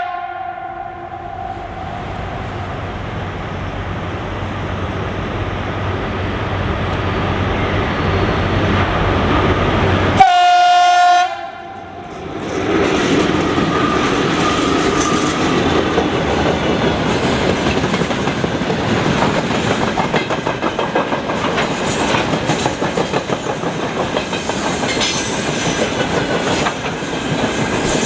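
VL11.8 electric locomotive's horn: the end of one blast at the start, then a second blast of about a second some ten seconds in as the train draws near. The freight train then rolls past, its wagon wheels clattering over the rail joints.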